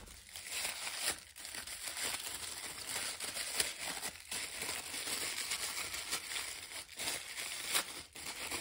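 Packaging crinkling and rustling as it is handled and unwrapped, a continuous crackle with a few sharper clicks.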